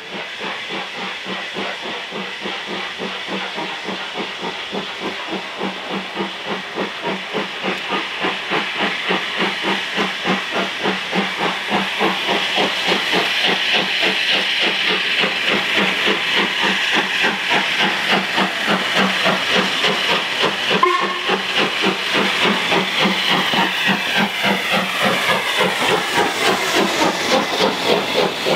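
Three-cylinder LMS Jubilee class steam locomotive No. 45596 'Bahamas' approaching under steam, its exhaust beats coming fast and even with a hiss of steam, growing steadily louder as it draws near and passes. A single sharp click stands out about two-thirds of the way through.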